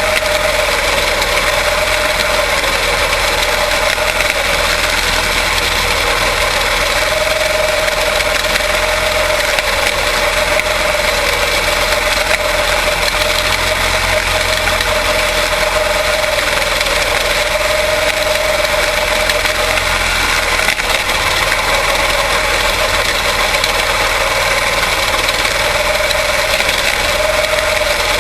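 Quarter midget race cars' single-cylinder Briggs & Stratton Animal engines running together, a steady loud buzz whose pitch wavers slightly up and down.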